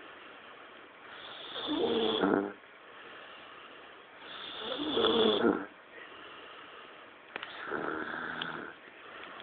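A man snoring in his sleep: three snores about three seconds apart, the third softer than the first two, with a short click just before it.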